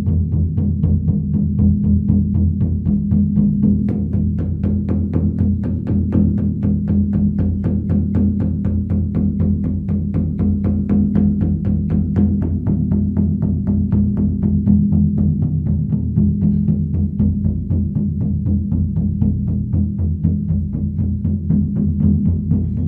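Large Motherdrum frame drum beaten in a rapid, even rhythm, each stroke blending into a deep, sustained ringing hum.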